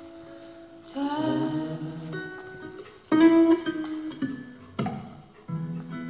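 Acoustic guitar strummed, a few chords struck and left to ring, the loudest about three seconds in.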